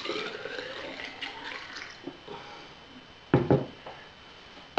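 Low-proof distillate poured from a glass jar through a plastic funnel into a tall glass measuring cylinder, trickling for about two seconds, its pitch rising a little as the cylinder fills, then tapering off. A brief louder sound comes a little past three seconds in.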